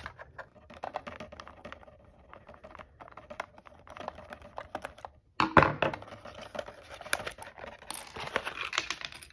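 Hands working a cardboard box insert while a screwdriver undoes the screw holding a plastic display stand: a run of small clicks and rustles. A sharp knock comes about five and a half seconds in, followed by denser scraping and rustling of cardboard.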